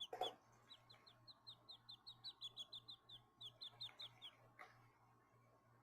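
Baby quail chicks peeping: a fast, faint series of short, falling high peeps, about five a second, that stops a little past four seconds in. A soft thump just at the start.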